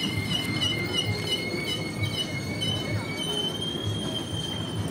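High-pitched metallic squealing from a turning Ferris wheel, two steady squeal tones that break off and resume, shifting higher about three seconds in. A steady low thudding runs underneath, about twice a second.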